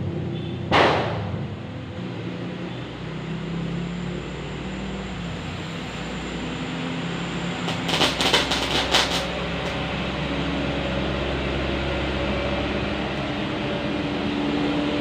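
A firecracker goes off with a single sharp bang about a second in. Near the middle comes a quick run of about eight crackling pops within a second, typical of a crackle firecracker (mercon kretek), over a steady low rumble.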